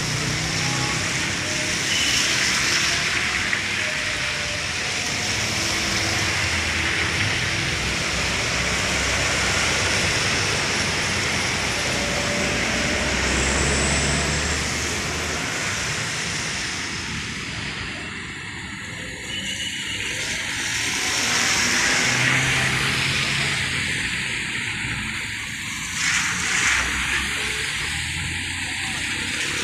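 Road traffic on a wet road: cars, a truck and motorcycles driving past one after another, their engines and tyres hissing on the wet surface. The sound swells as each vehicle passes and fades between them.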